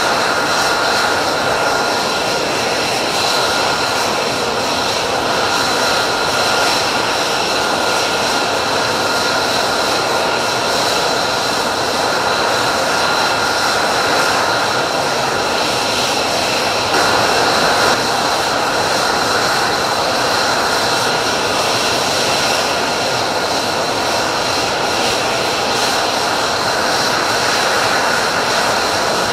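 F-35 fighter's single F135 turbofan running on the ground: a steady jet whine, several held high tones over an even rush, slightly louder for a moment about 17 seconds in.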